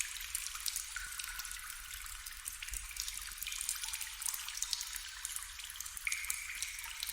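Water trickling and dripping: a steady patter of small drops over a light hiss, with a few faint held tones now and then.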